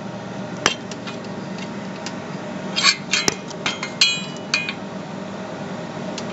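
Metal clinks and taps from tools or parts being handled, a single one early and then a quick cluster near the middle, one of them ringing briefly. A steady low hum runs underneath.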